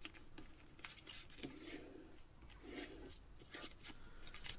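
Faint rustling and creasing of a sheet of paper being folded by hand into a paper airplane, with a few light ticks and a couple of soft swishes as the fold is pressed down.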